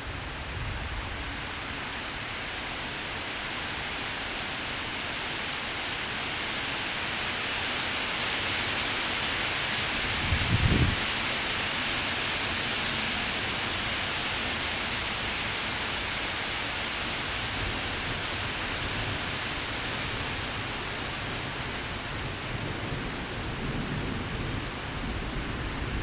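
Strong gusty wind rushing steadily, swelling to a peak about midway and then easing off, with a brief low thump a little past ten seconds in.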